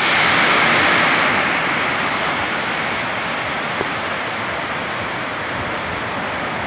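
Torrential rain pouring down in strong wind: a loud, steady rushing hiss that eases a little after the first second or so.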